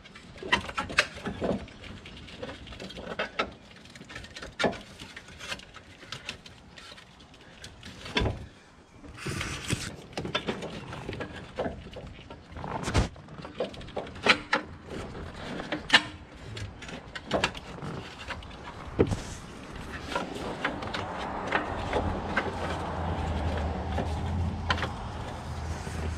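Wrench and metal parts clanking in irregular knocks and clicks while the engine mount's block bolts are loosened and the mount is worked loose. A steadier low rumbling noise sets in over the last few seconds.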